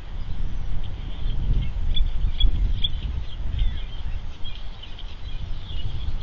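Steady low outdoor rumble on the microphone, with short, high bird chirps scattered throughout, the clearest a few quick ones about two to three seconds in.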